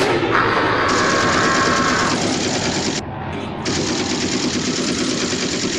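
Sound-effect rapid automatic gunfire, a continuous rattle that thins briefly about three seconds in. A steady whine sits over the first two seconds.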